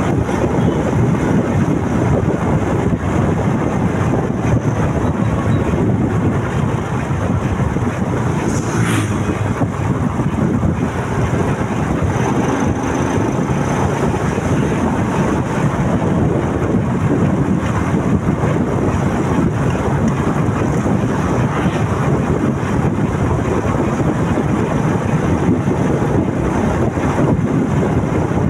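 Wind rushing over the microphone of a moving motorcycle, with the bike's engine and road noise steady underneath. A short sharp click comes about nine seconds in.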